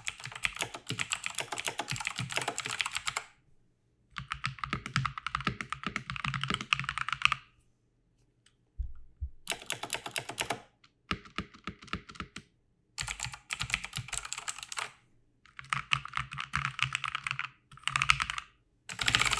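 Bursts of fast typing on mechanical gaming keyboards, a Razer BlackWidow Chroma V2 with audible clicky switches compared with the ASUS ROG Strix Scope II with quieter, duller NX Snow switches. The keys clatter in about nine runs of one to three seconds with short pauses between them, and there is a single low thump about nine seconds in.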